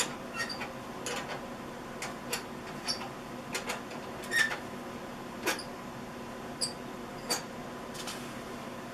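Irregular light metallic clicks and short squeaks, roughly one a second, as the rear brake nut on a Honda CRF230F is worked off. A faint steady hum lies underneath.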